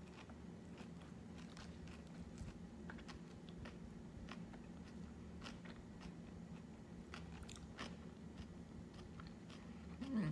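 A person chewing a mouthful of poke bowl with leafy greens close to the microphone: irregular soft crunches and mouth sounds. A brief hummed "mm" near the end.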